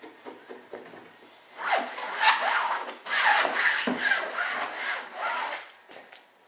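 Resin-wet fibreglass cloth being scrubbed and pressed into a wing mould with a brush and gloved hand during a wet layup. A few light dabs are followed, from about one and a half seconds in, by a run of loud rubbing strokes that stop shortly before the end.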